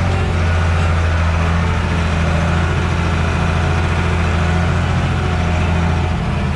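Fendt Favorit 611 LSA tractor's six-cylinder diesel engine running steadily, a loud deep drone heard from inside the cab; its note drops slightly near the end.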